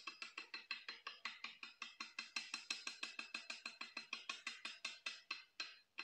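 DT Swiss 240 rear hub freewheeling as the wheel spins down, its star-ratchet freehub ticking evenly. The clicks slow from about nine a second to about four a second and stop near the end. Picked up close through a mic clipped to the rear derailleur, with a stethoscope-like sound.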